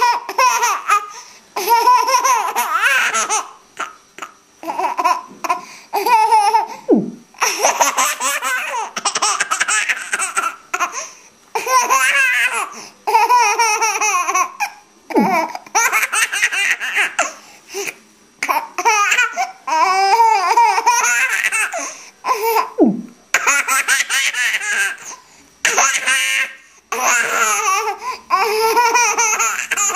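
Baby girl laughing in repeated bouts, each a few seconds long, with short breaks for breath between.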